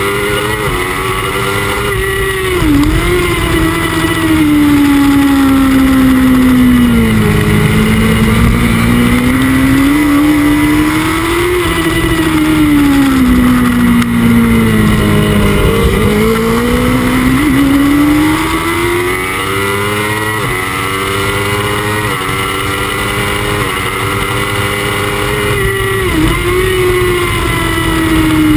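Onboard sound of a Honda CBR1000RR's inline-four engine running hard at racing speed, its pitch falling and climbing as the rider brakes and accelerates through corners, with quick steps in pitch at gear changes about twenty seconds in. Steady rush of wind noise underneath.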